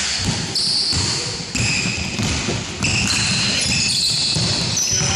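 Basketball shoes squeaking several times on a hardwood court, over the thuds of running feet and the ball bouncing, echoing in a large sports hall.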